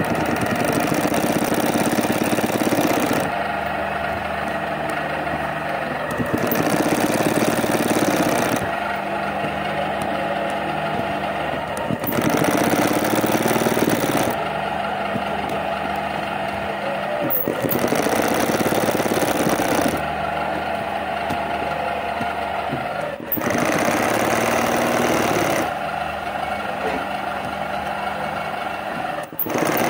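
Electric sewing machine stitching in short runs of two to three seconds, with pauses of about three seconds between runs while a steady hum carries on.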